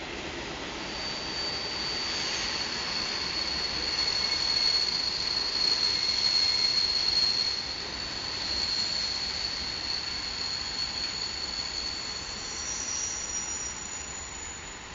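Freight train of hopper wagons rolling past, its wheels squealing in a steady high-pitched whine that sets in about a second in and lasts nearly to the end, over the rumble of the wagons on the rails. The squeal is loudest in the middle, and a second, higher squeal joins near the end.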